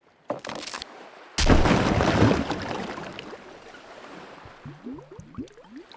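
Glass beer bottle of Peroni Nastro Azzurro being opened: a sharp crack with a brief hiss, then a loud fizzing rush about a second and a half in that fades over the next couple of seconds. Near the end the beer glugs out of the bottle neck in quick rising gulps, several a second.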